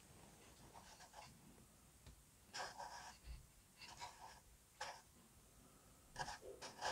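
Faint scratching and rubbing of hands handling the thin wooden frames and bow formers of a model ship hull, in a few short patches from about two and a half seconds in.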